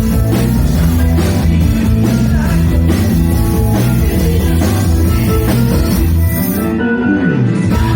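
Rock band playing: electric guitar and drum kit over a steady beat, with a short break near the end where the bass and cymbals drop out before the band comes back in.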